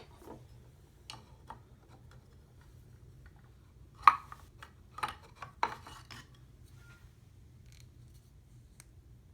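Tobacco pipes being handled: scattered small clicks and knocks as stems are pulled off the pipe shanks and set down, the loudest about four seconds in, over a faint steady hum.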